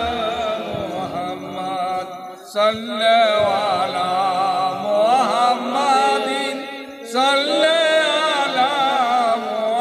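A man's voice chanting an Arabic invocation in a slow, melismatic style over a microphone and loudspeakers. The long held notes waver, and there are short breaths about two and a half and seven seconds in.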